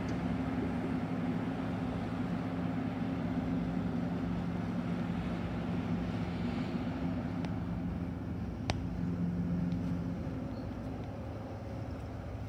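Steady low mechanical hum of machinery on an airport ramp beside a parked turboprop airliner, with one sharp click about nine seconds in.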